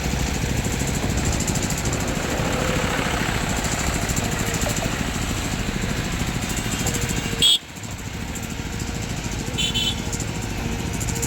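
Diesel engine of heavy machinery running steadily, with a sudden sharp click and a brief drop in level about seven and a half seconds in before the running carries on, plus a short high squeak a couple of seconds later.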